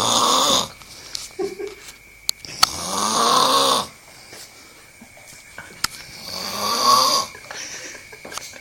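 A person snoring loudly: three long, rasping snores with the breath, about three seconds apart.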